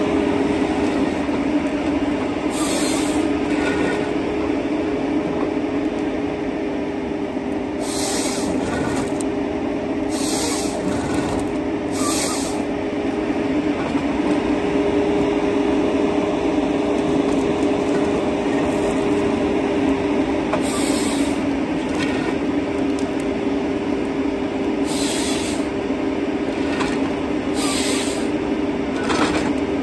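John Deere 953MH tracked harvester running steadily under load, its engine and hydraulics making a constant drone with a steady whine, as its Waratah 622B head feeds and processes a stem. Several short, sharp hissing bursts break through, the head's saw cutting the stem to length.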